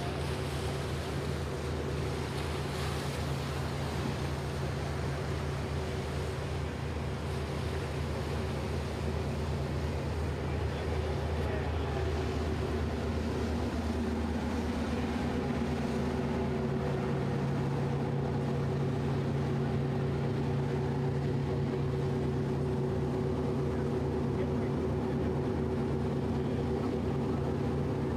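Fireboat's engines running steadily while under way, a low multi-tone drone with the rush of wind and water over it; about halfway through the engine note shifts upward and grows slightly louder.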